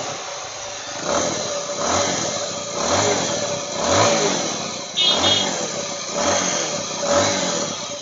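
Bajaj Avenger 220's single-cylinder DTS-i engine running, its throttle blipped about once a second, with a rattling 'kha kha kha kha' noise. The mechanic puts the noise down to play in the scissor gear and a worn balancer.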